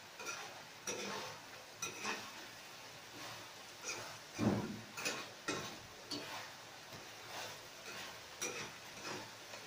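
Metal spatula stirring chicken wings in a steel wok, scraping and knocking against the pan at uneven intervals about every half second, the loudest stroke a little past four seconds in.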